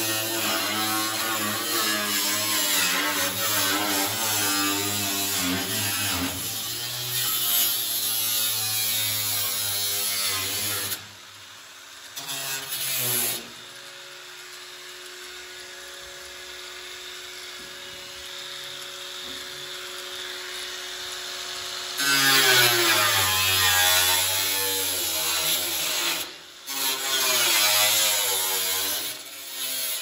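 Cordless angle grinder with a cut-off wheel cutting through the rusted sheet-steel floor pan of a 1963 Ford Falcon, its whine wavering in pitch as it loads up in the cut. It stops about eleven seconds in, leaving a quieter stretch with a few steady tones. Cutting resumes a little past twenty seconds in.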